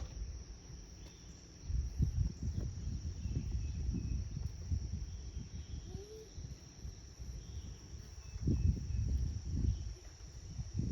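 Steady high-pitched insect drone, crickets or cicadas, held on one pitch throughout, with bouts of low rumbling noise about two seconds in and again near eight and a half seconds.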